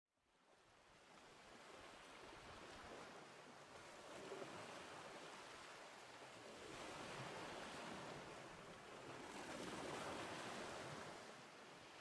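Faint surf of small sea waves washing in, fading up from silence at the start and swelling about seven and ten seconds in.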